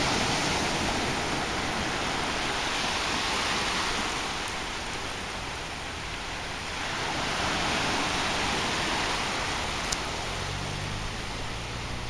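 Small waves breaking and washing up a sandy beach on a calm sea: a steady rush that swells and eases.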